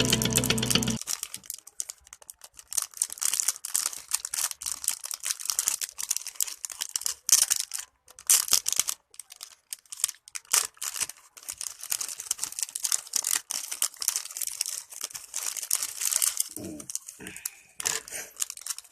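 Packaging being unwrapped for a mobile phone holder: irregular crinkling and tearing, many short crackles in quick succession.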